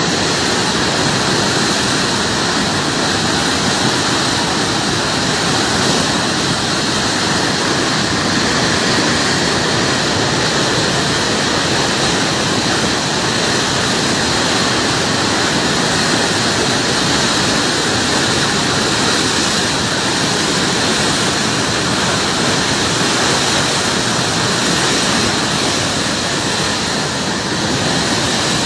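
River floodwater rushing through a barrage: a loud, steady wash of water noise that holds unchanged throughout.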